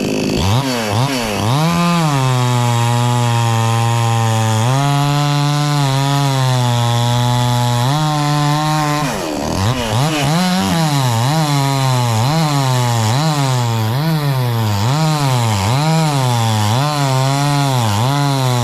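Chainsaw running hard while cutting coconut tree wood. It holds at high revs for several seconds and dips briefly about halfway through. After that its pitch rises and falls about once a second.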